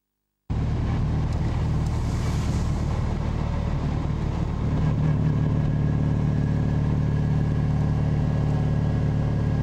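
Panhard DB HBR5's air-cooled flat-twin engine running steadily. The sound cuts in abruptly about half a second in and grows slightly louder about five seconds in.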